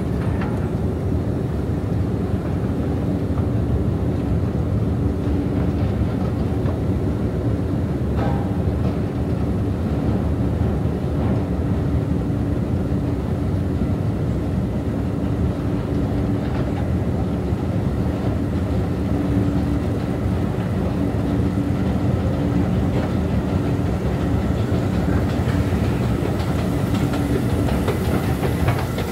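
Long escalator running under a rider: a steady mechanical rumble and rattle of the moving steps and drive, with a low hum. Clicking rises near the end as the steps level out at the top landing.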